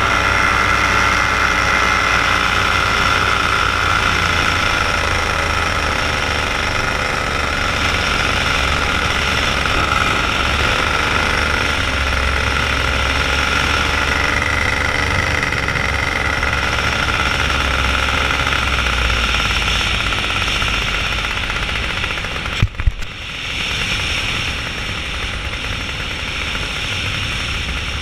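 Paramotor engine and propeller running steadily in flight, with a low rumble beneath. About twenty-three seconds in there is a brief break with a couple of sharp clicks, after which it carries on a little quieter.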